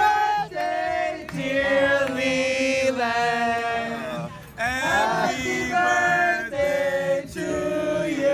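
A group of waiters singing a birthday song together in long held notes, one of them clapping along.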